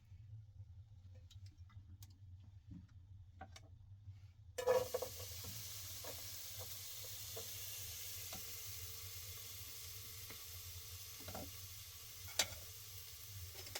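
Food going into a hot pan: after a few faint clicks, about a third of the way in there is a sudden hit and a steady sizzle of frying starts and holds, with occasional clicks and knocks over it.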